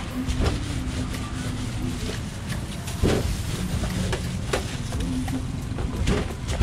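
A wooden rolling pin knocks a few times on a stainless-steel table as pizza dough is rolled out and flipped, over a steady low rumble of street traffic.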